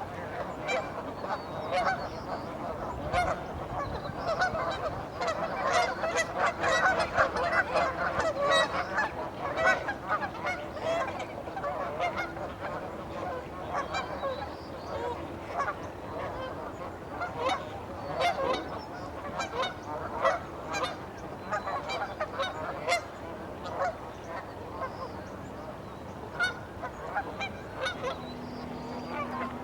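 A large flock of Canada geese honking on a river, many calls overlapping, busiest a few seconds in and thinning out toward the end.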